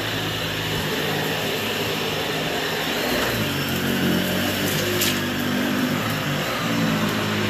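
Dyson upright vacuum cleaner running steadily, pushed from carpet onto a rug; its hum steps higher about three seconds in. A single sharp click comes about five seconds in.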